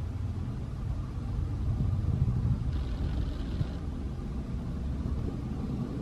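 Low, steady rumble of background noise, with a faint, hoarse begging call from a fledgling Oriental magpie-robin about three seconds in, lasting about a second.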